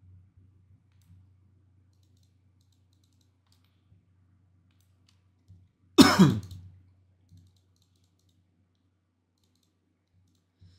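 A man coughs once, loudly, about six seconds in, over faint computer mouse clicks and a low electrical hum.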